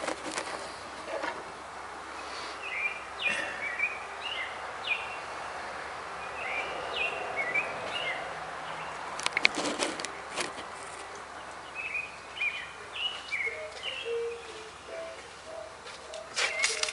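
Birds chirping in short, irregular calls over a steady background hiss, with a brief cluster of sharp knocks about halfway through.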